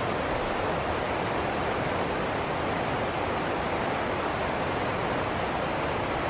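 Shallow rocky stream tumbling over a small cascade of rocks into white water, a steady, unbroken rush of water.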